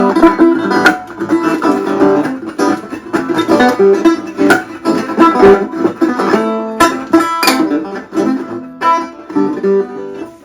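Dobro resonator guitar playing a fast run of picked notes, which stop suddenly near the end.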